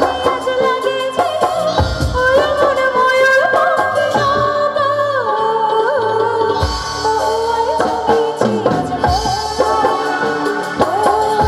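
A woman singing a Bengali song live through a microphone and PA, over band accompaniment with a drum beat.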